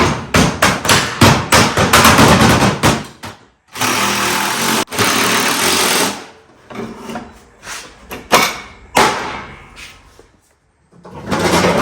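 Rapid, loud knocks in quick succession, about four a second, like hammer or tool blows, for the first few seconds. Then about two seconds of steady hissing noise and a few scattered clicks and knocks.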